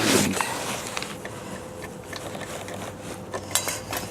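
Metal parts of a cordless miter saw being handled as the guard assembly is unlatched and the blade worked off the arbor: a scrape at the start, then light clinks and clicks, with a quick run of clicks near the end.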